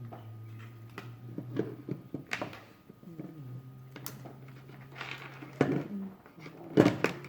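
Scattered clicks and knocks of small plastic and metal parts being handled, over a low steady hum; the sharpest knocks come near the end.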